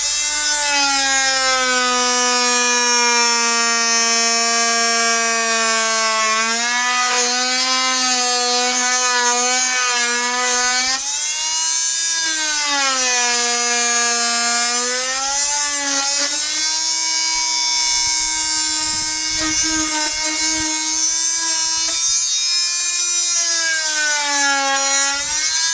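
Ferrex oscillating multi-tool with a saw blade running and cutting wood: a steady, high buzz whose pitch sags and recovers several times as the blade is pressed into the wood.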